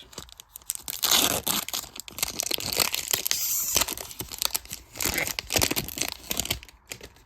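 Trading card pack wrappers being torn open and crinkled, a dense irregular crackling that stops shortly before the end.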